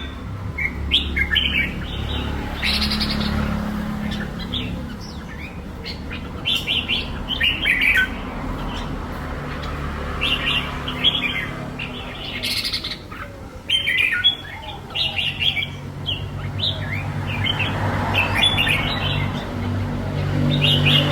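Red-whiskered bulbul singing: short chirping, warbling phrases repeated every second or two, over a steady low hum.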